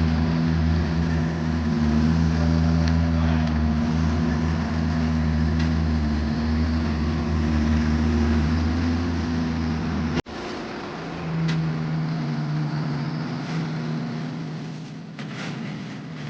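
Vermeer mini skid steer's engine running steadily. About ten seconds in the sound cuts abruptly to a quieter engine that slowly fades, with a few sharp clicks near the end.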